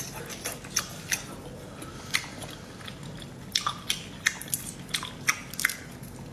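Chewing, then fingers peeling the shell off a raw marinated shrimp: a string of sharp, irregular clicks and crackles of shell, thickest in the second half.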